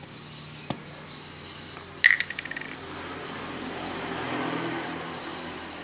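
A small hard object drops onto a hard surface about two seconds in: a sharp clack followed by quick clattering bounces for about half a second. A single light click comes just before it, near the start, and a soft hiss swells and fades in the second half.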